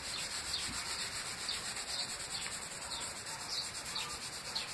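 Cloth rubbing over a wet painted panel, wiping the paint off in a steady scrubbing sound.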